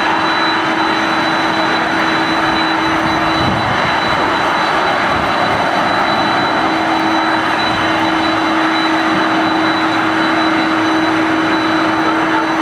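Boeing 747-400's jet engines running steadily at taxi power: a constant rushing noise with a steady high whine and a lower steady hum.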